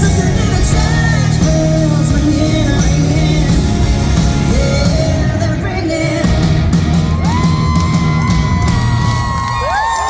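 Live country band with a female lead vocal, ending the song on a long held note while the band drops away near the end, with a few yells from the crowd.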